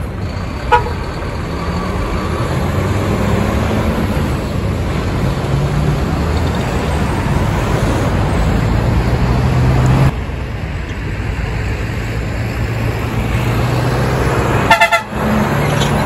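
Heavy diesel semi-trailer trucks running, with the engine drone changing pitch in steps as they pull away. There is a short horn toot about a second in and another near the end.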